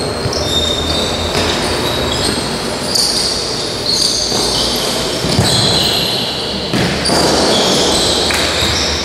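Futsal players' court shoes squeaking on the indoor sports floor in many short, high-pitched chirps, mixed with a few thuds of the ball being kicked, over the constant noise of a large hall.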